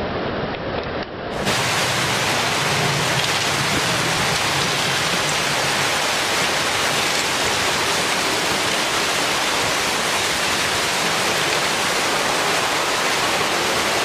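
Tsunami floodwater rushing and churning through a town street, a steady rush of water. About a second in the sound switches abruptly to a brighter, fuller recording of the same rush.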